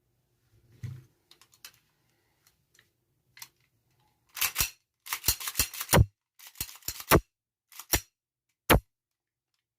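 Colt Commander 1911 replica CO2 4 mm pistol being worked: a few faint handling clicks, then from about four seconds in a quick series of a dozen or so sharp snaps from the gun, several in rapid succession and the loudest near the end.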